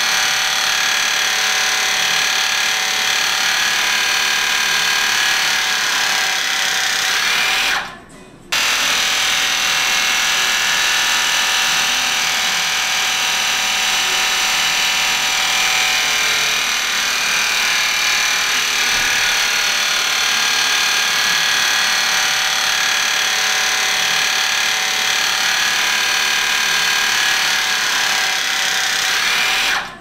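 A motor-driven power tool running steadily, a whine made of several steady tones with a short break about eight seconds in.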